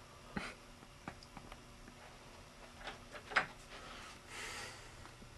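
A few faint scattered knocks and clicks, the loudest a sharp knock about three and a half seconds in, followed by a brief soft rustle.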